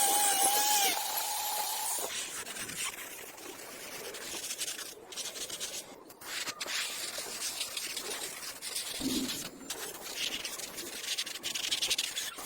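Irregular rubbing and scraping by hand on a workpiece, with a short steady squeal in the first second.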